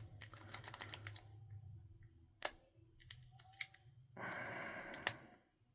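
Faint, scattered clicks of a lock pick working the pin stack of a brass-bodied padlock as pins are set, with a soft hiss lasting about a second a little after the middle.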